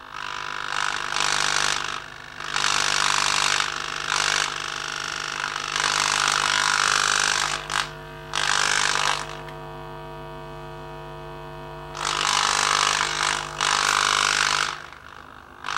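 Hands rubbing and pressing on a loudspeaker's new foam surround, in stretches of rustling friction one to two seconds long with short gaps. Underneath is a steady low hum that stops about a second before the end.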